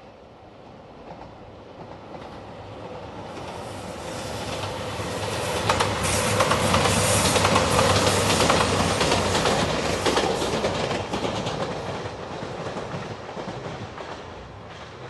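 A train passing over a level crossing, its wheels clicking over the rail joints. The sound grows louder to a peak about halfway through and then fades away. The crossing bell is heard as the train approaches.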